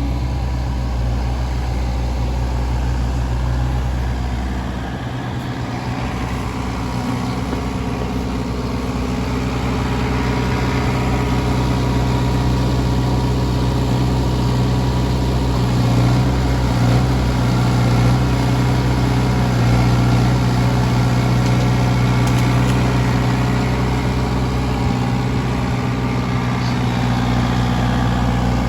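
Kubota mini digger's diesel engine running, dipping a little about five seconds in and then picking up as it works the hydraulic rotator log grab.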